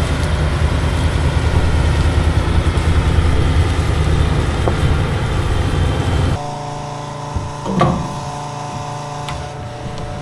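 Heavy vehicle engine running under load with a loud low rumble, then, after an abrupt change about six seconds in, a quieter steady engine idle with a single brief knock.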